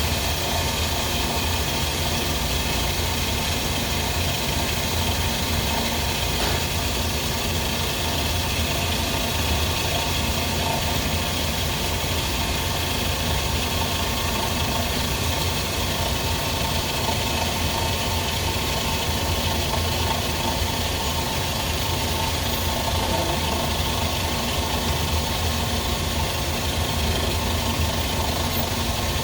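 FH680 CNC machining center running with a steady low hum and a steady whine: the spindle noise that appeared after a cable replacement, which the owner suspects comes from a bearing.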